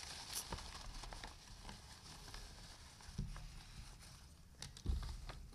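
Faint rustling and crinkling of a paper envelope being handled and opened, with a couple of soft thumps about three and five seconds in.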